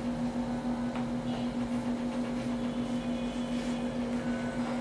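A steady low electrical hum with a background hiss, and a few faint short squeaks of a marker writing on a whiteboard.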